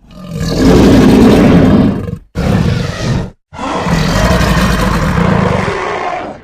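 Custom sound-effect roar of a Suchomimus dinosaur, given three times in a row: a long roar of about two seconds, a short one of about a second, then a long roar of nearly three seconds that fades out near the end.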